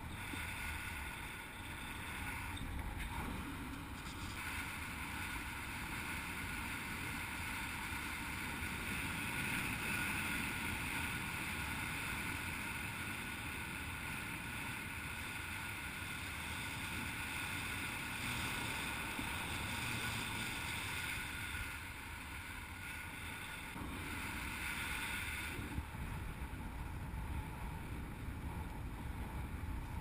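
Steady rush of wind over a camera microphone in paraglider flight, with a brighter hiss from about four seconds in until a few seconds before the end.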